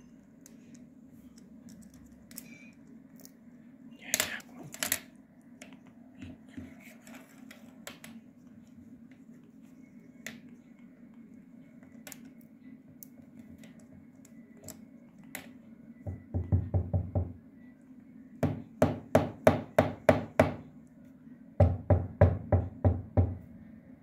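African grey parrot hammering at a plastic ballpoint pen on a wooden desk with its beak: scattered taps and nibbles at first, then three quick runs of loud knocks, about five a second, in the second half.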